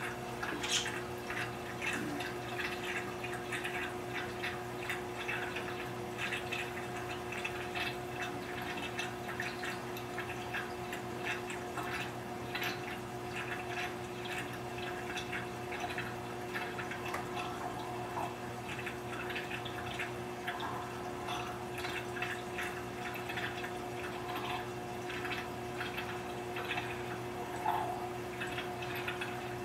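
Reef aquarium water trickling and dripping, with many small irregular splashes, over a steady hum from the tank's running pumps.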